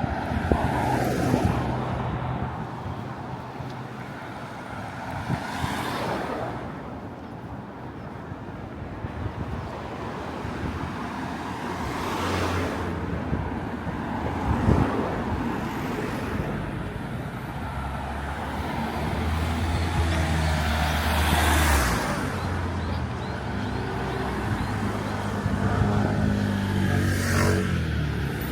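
Road traffic: vehicles passing one after another over a steady low rumble, each pass swelling and fading, with the last one's engine pitch dropping as it goes by near the end.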